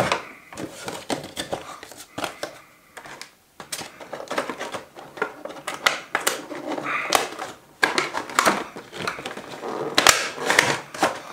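Cardboard and plastic toy packaging being handled: a busy run of clicks, taps and rustling, with a cluster of sharper knocks near the end.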